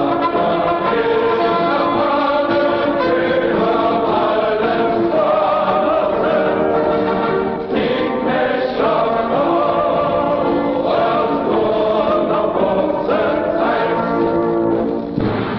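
Choral music: a choir singing long held notes, the chords shifting every second or two.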